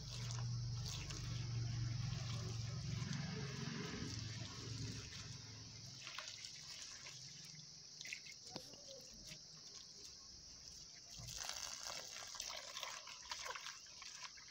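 A stream of running water pouring onto sliced onions in a plastic basket as hands rub and rinse them, with small splashes and drips; near the end the water falls into a bowl of green chillies being rinsed. A low hum sits under the water for the first few seconds.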